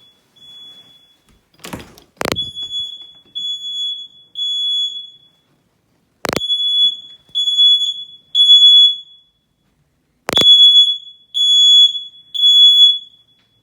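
First Alert smoke alarm sounding its temporal-3 pattern: loud, high-pitched beeps in groups of three, a group about every four seconds, each group starting with a sharp click. It is going off with no cause the owner can find, which she takes for a malfunction in this detector.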